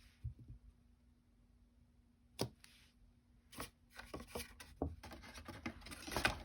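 Cardstock and card pieces being handled on a craft table: a few separate sharp taps, then a quicker run of taps and rustling paper near the end.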